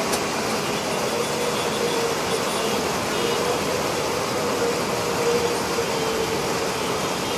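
Busy city road traffic: a steady mix of bus, truck, car and auto-rickshaw engines and tyres, with a few faint short horn toots now and then.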